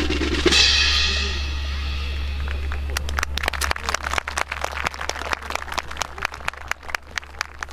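A loud crash about half a second in that rings away over about two seconds, followed by scattered applause from an outdoor audience, thinning out near the end.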